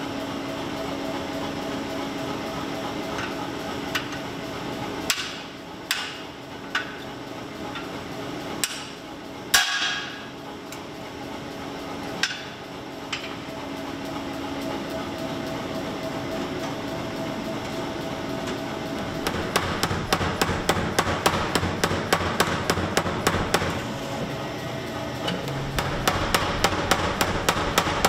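Power hammer forging a red-hot carving axe blank: two runs of rapid, even blows, about four or five a second, in the second half, over a steady machine hum. A few single metal knocks come earlier.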